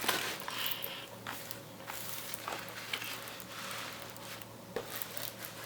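Soft rustling and a few light taps from the diamond painting canvas and its plastic cover being handled.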